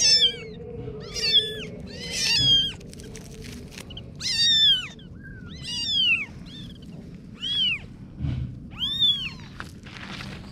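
Kitten meowing over and over: high, arching calls about once a second, rising and falling in pitch.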